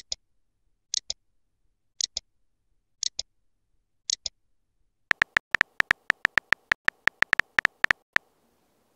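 Texting-app sound effects: a pair of short hissy clicks about once a second, five times, then a quick run of sharp keyboard tap ticks as a message is typed out, stopping shortly before the end.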